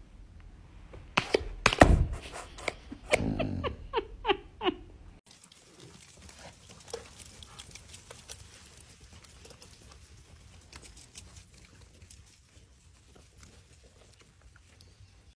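A dog pawing at a laptop: a few sharp knocks of the paw on the machine, then a run of five short vocal grumbles from the dog. About five seconds in the sound drops to quiet rustling with faint ticks.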